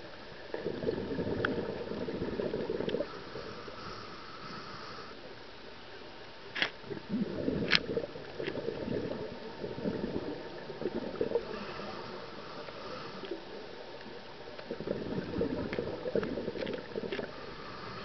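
Scuba regulator breathing underwater: three exhalations, each a few seconds of bubbles from the exhaust valve, with a fainter hiss of inhaling between them. Two sharp clicks come near the middle.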